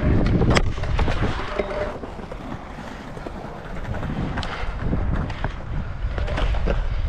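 Pro scooter wheels rolling on a concrete skatepark bowl, with wind rumbling on the body-mounted camera's microphone. Sharp clacks of the scooter landing and hitting the concrete about half a second and a second in, and a few more near the end, with a quieter stretch in the middle.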